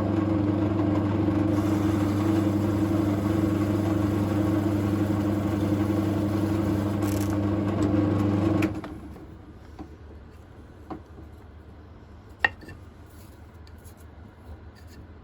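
Drill press motor running steadily while drilling the second end of a resin pen blank, then switched off about nine seconds in. A few light clicks follow.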